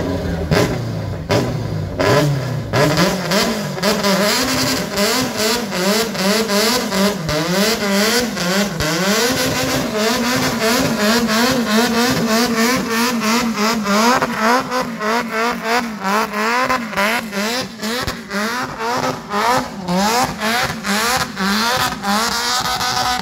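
A Caterham Seven's engine revved hard again and again, its pitch swinging rapidly up and down with sharp crackles, as the car spins its rear wheels in a smoky burnout on a wet track.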